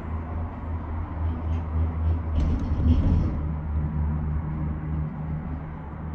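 Doppelmayr eight-passenger gondola cabin riding the haul rope, heard from inside the cabin: a steady low hum and rumble, with a brief louder rattle a little over two seconds in.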